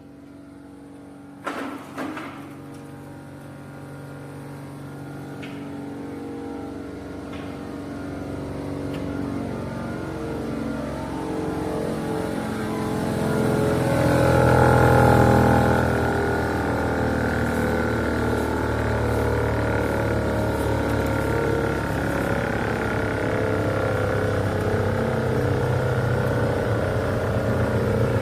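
Klockner 80x300K 2WT wood chipper, with an 18.5 kW main motor, running and growing louder as it works, with two sharp knocks about a second and a half in.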